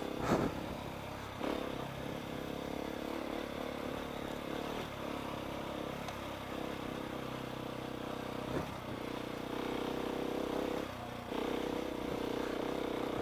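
KTM 690 single-cylinder motorcycle engine running while being ridden over rough off-road terrain, its pitch and level shifting a few times as the throttle opens and closes.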